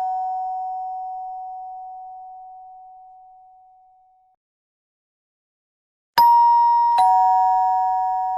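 Two-note doorbell chime. The ringing of one ding-dong fades away over about four seconds. After a short silence a new ding-dong sounds, a higher note and then, under a second later, a lower one, both ringing on.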